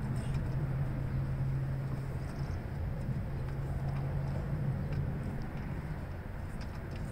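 Steady low motor hum over a low rumble, with a few faint light clicks.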